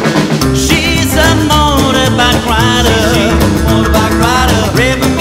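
Band music: a bass line comes in about half a second in, then a wavering lead melody plays over the rhythm.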